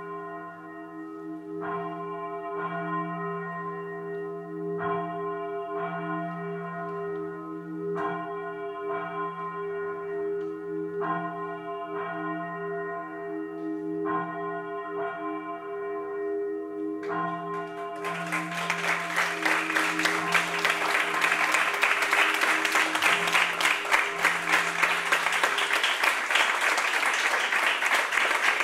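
A church bell tolling slowly, struck about every three seconds over a steady low hum. About two thirds of the way through, audience applause breaks out and grows louder than the bell, which fades away under it.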